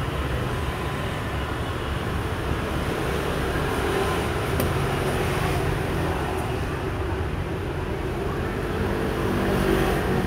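Steady outdoor traffic noise with a low rumble, with a couple of faint sharp clicks near the middle.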